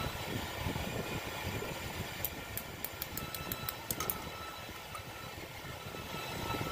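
A machine running steadily, with a faint whine. About two seconds in, a quick run of light ticks lasts for about two seconds.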